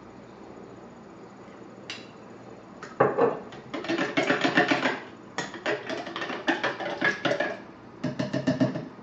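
Metal spoon clinking quickly against a plastic jar while phospholipids are stirred into water, in three runs of rapid strikes that start about three seconds in. A single click comes just before them.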